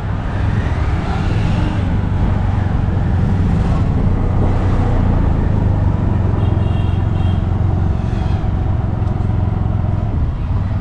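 Steady engine hum and road noise from riding in an open three-wheeled auto-rickshaw through street traffic. A short high-pitched tone sounds about six and a half seconds in.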